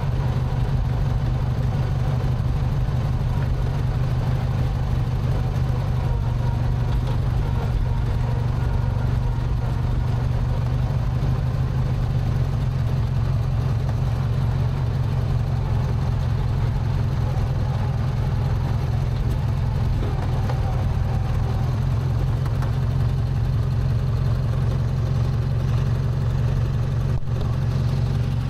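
Lowe's-branded riding mower's 18-horsepower Briggs & Stratton twin-cylinder engine running at a steady speed as the mower is driven along, on a newly fitted carburetor.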